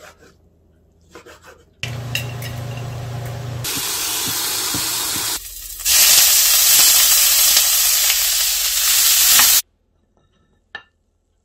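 Dried radish greens (siraegi) sizzling as they are stir-fried in a hot stainless pan, a loud steady hiss that grows louder partway through and cuts off suddenly. A few faint knife knocks on a cutting board come before it, and a single sharp click comes after.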